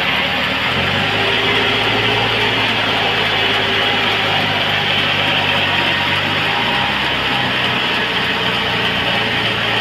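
Sawmill machinery running with a steady engine-like drone; its pitch steps up about a second in and drops back about two-thirds of the way through, over a steady hiss.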